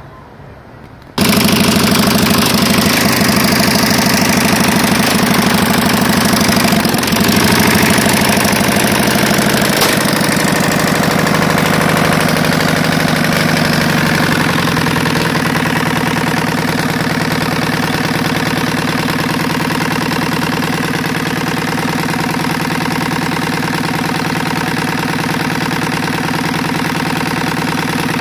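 Hybrid Engines Corp's prototype opposed-piston, rotary-valve engine starts suddenly about a second in and runs fast. Near the middle it slows and settles to a steady idle.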